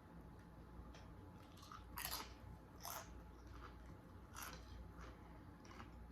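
Faint close-up chewing of crunchy food, with a few crisp crunches about two, three and four and a half seconds in.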